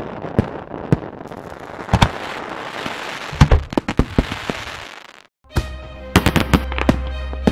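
Fireworks hissing and crackling with a series of sharp bangs. They stop briefly about five seconds in, then music with a deep steady bass starts under more bangs.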